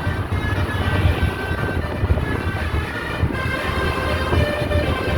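A bus's 'basuri' telolet horn, a multi-tone musical air horn, playing a tune in held notes that change in steps. Under it runs a strong low rumble of engine and wind.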